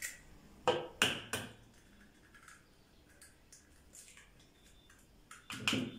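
Eggs being cracked against the rim of a plastic mixing bowl: a few sharp taps and the crack of shell about a second in, then another cluster of cracking near the end.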